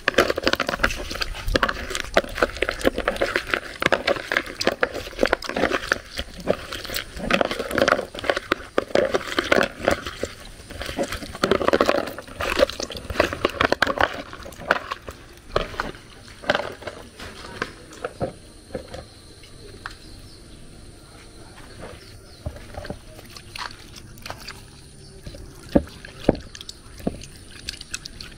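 Hands scrubbing snail meat in water in a plastic bowl: wet sloshing and rubbing with small scrapes and clicks, busy at first and thinning out to scattered clicks after about sixteen seconds.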